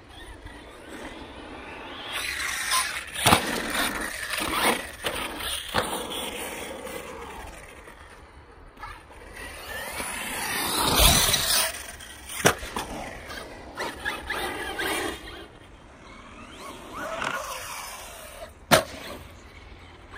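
Electric RC off-road trucks driving on a dirt track: their motors and gears whine, the pitch rising and falling as they accelerate and back off in several passes. Sharp knocks of the trucks landing or hitting come through, the loudest near the end.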